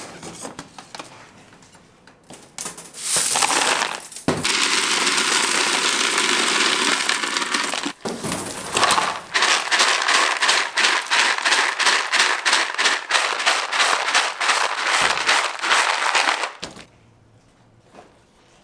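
Cut hard-candy pieces rattling and clattering in a slotted plastic container as it is shaken to sift off the candy dust and crumbs. The dense rapid clatter starts about three seconds in, breaks briefly about eight seconds in, and stops abruptly near the end.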